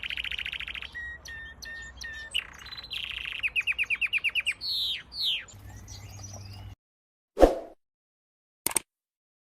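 Lancashire canary singing: a fast trill, then short notes and a buzzy note, then a rapid run of repeated chirps at about nine a second and a few falling whistles. The song cuts off suddenly about seven seconds in. A loud, short sudden sound follows, then a faint click.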